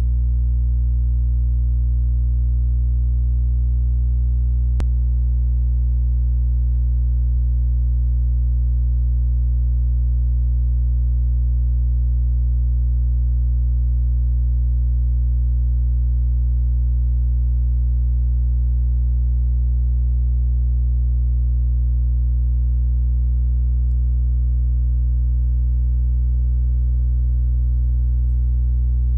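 Loud, steady low electrical hum with a buzzy stack of overtones, unchanging throughout, typical of mains hum picked up in the recording. A single faint click about five seconds in.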